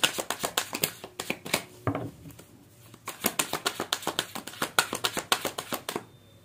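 A tarot deck being shuffled by hand: rapid papery card clicks in two runs, with a short pause about two seconds in, ending about a second before the end.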